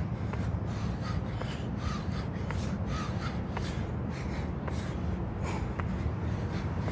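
A man breathing hard in quick, sharp exhales, about twice a second, as he works through jump squats. A few light taps come from his shoes on the court, over a steady low rumble.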